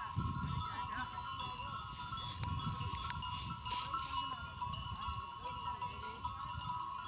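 Goats bleating and their bells clinking, over a steady high-pitched tone.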